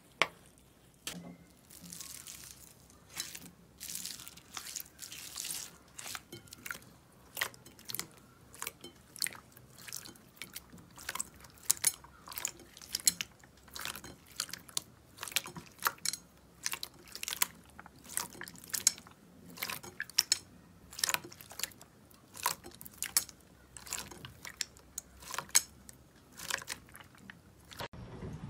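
Slime being squeezed and pressed by hand, with irregular wet crackling pops and clicks. Around the middle, clear slime packed with foam beads is pushed down in a glass bowl, crunching as the beads pop.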